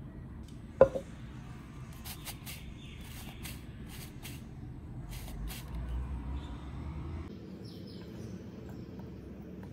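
Kitchen handling sounds: one sharp knock about a second in, then a run of light clicks and a soft low rustle as flour is tipped from a cup into a glass mixing bowl.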